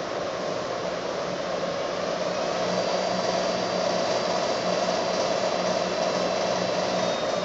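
Hobart Legacy 20-quart planetary mixer running, its motor giving a steady whir and hum as the wire whip turns in the bowl. The hum drops away near the end as the timed mix runs out.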